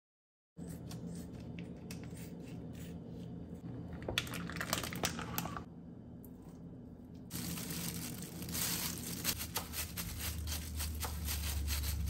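Packaging being handled close up: crinkling, tearing and rustling with many small clicks, starting about half a second in. A steady low hum runs beneath and grows louder near the end.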